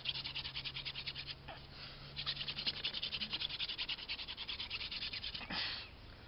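Hand-drill friction fire: a spindle spun between the palms grinding into a fireboard, a rapid even raspy rubbing of about a dozen strokes a second. It breaks off briefly about a second in, starts again, and stops near the end with one louder scrape.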